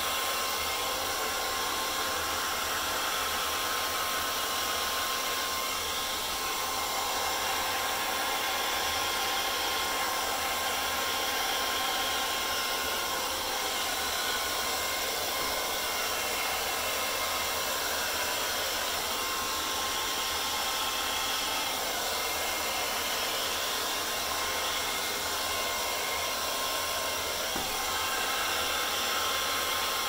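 Handheld hairdryer running steadily, blowing air across wet acrylic paint on a canvas. A thin, steady motor whine sits over the rush of air.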